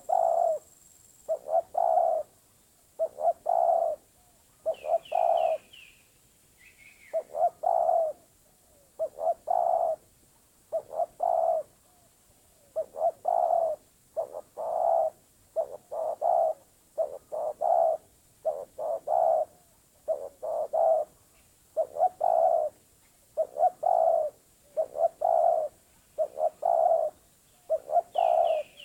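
Spotted dove (terkukur) cooing: a low, husky phrase of a few notes repeated about every one and a half seconds. A small bird's high chirps cut in briefly a couple of times.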